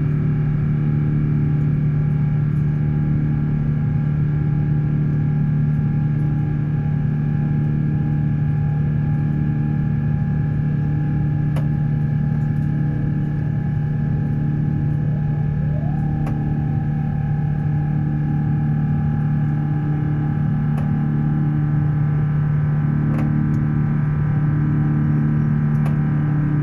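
Cabin drone of an Airbus A350-900's Rolls-Royce Trent XWB engines: a steady low hum with several steady higher tones and a slow, regular throbbing about once a second, with a few faint clicks.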